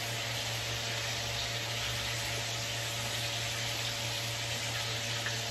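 Steak frying in butter in a pan, a steady sizzle, over a steady low hum.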